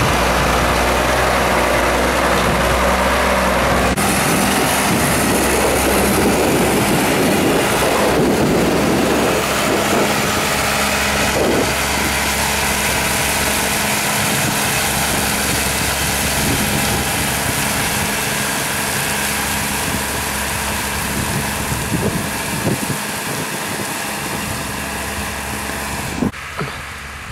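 Schlüter 1500 TVL tractor's diesel engine running steadily under load as it pulls a slurry tanker across a field. The sound grows gradually quieter through the second half as the rig pulls away.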